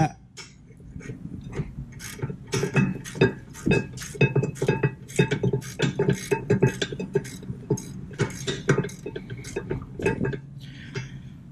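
Hand ratchet clicking in quick, uneven strokes, several clicks a second, as a 19 mm rear brake caliper bracket bolt is run out.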